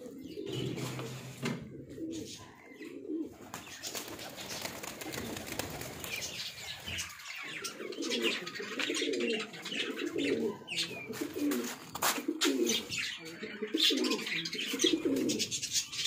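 Domestic pigeons cooing over and over, with high chirping from small cage birds such as budgies mixed in. The cooing gets busier about halfway through.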